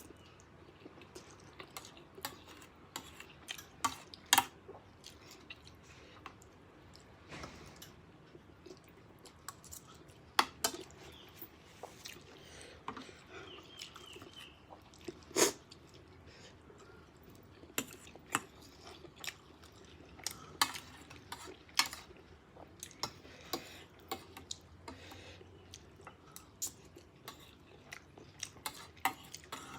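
Close-up eating sounds of a person eating Samyang spicy instant noodles: chewing, with many small clicks of utensils and dishes and a few sharper, louder clinks.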